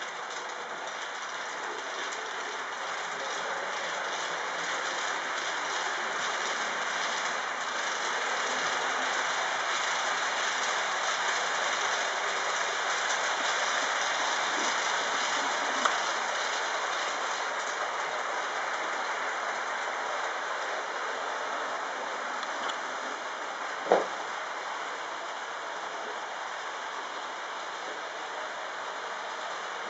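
Trix HO-scale GG1 model locomotive running on DCC without a sound decoder: a steady, smooth whir of its motor and wheels on the track, growing louder and then easing off. A faint click about halfway through and a single sharp knock, the loudest sound, about two-thirds of the way through.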